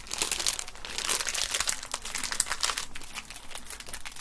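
Plastic snack packet crinkling and crackling as it is handled in the hands, in quick irregular bursts that are densest in the middle.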